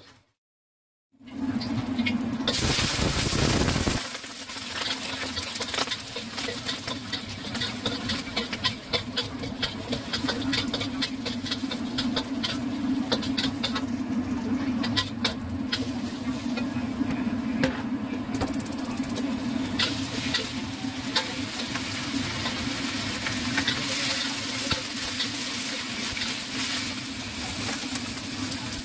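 Stir-frying in a steel wok: steady sizzle of lily bulb petals, broccoli and wood ear mushrooms in hot oil, with a metal spatula scraping and clicking against the wok, over a steady low hum. It starts after a second of dead silence and is loudest for the first few seconds.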